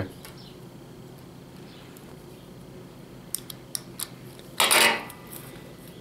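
Utility knife blade scoring the thick rubber insulation of a 2-gauge battery cable: a few small sharp clicks and scrapes about three to four seconds in, then a short louder rustle of the cable being handled near the end, over a steady low hum.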